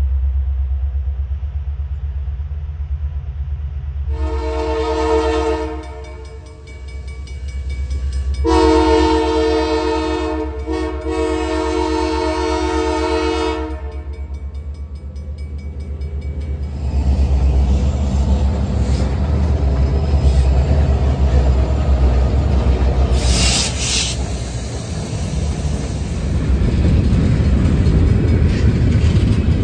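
Canadian Pacific diesel locomotives approaching a grade crossing, sounding their multi-tone air horn twice over a low engine rumble: a shorter blast about four seconds in, then a long one of about five seconds. The locomotives then pass and a string of empty covered hopper cars rolls by with steady wheel-on-rail noise.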